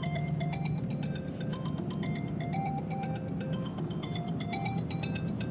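Background music: a light melody of short notes over a fast, steady ticking beat.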